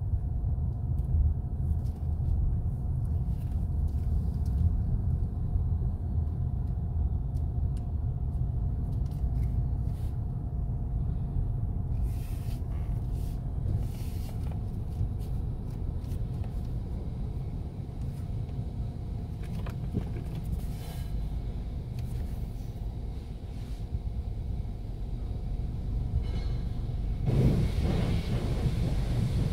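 Steady low rumble heard from inside a car's cabin as it rolls into an automatic tunnel car wash. Near the end a hiss of water from a hand-held pressure wand starts spraying onto the windshield.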